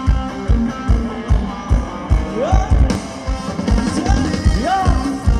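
Thai ramwong dance music from a band: a steady, fast drum beat with a melody over it, including a few sliding notes in the second half.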